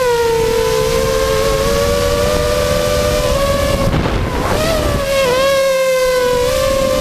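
A motor running steadily with a strong, slightly wavering drone, and a rush of noise about four seconds in.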